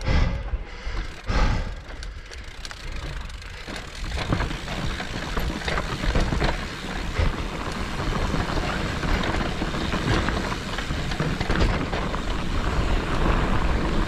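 Electric mountain bike climbing a rough dirt trail: tyres grinding over dirt and rock under a steady low rumble, with many small clicks and knocks from the bike.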